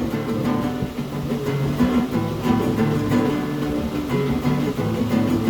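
Acoustic guitar strumming chords in a steady, driving rhythm, with no singing.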